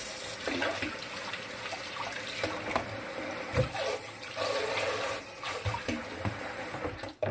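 Tap water running steadily into a sink, with a few small knocks, as hands are washed; the water stops just before the end.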